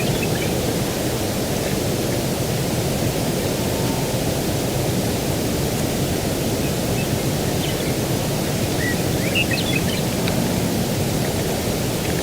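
Steady rushing outdoor ambience of breeze and distant ocean surf, with a few faint short bird chirps about eight to ten seconds in.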